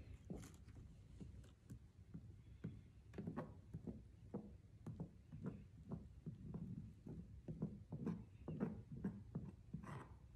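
Soft, irregular dabs and taps, a few a second, of a small hand tool pressing paper pulp onto a pulp painting on a tabletop.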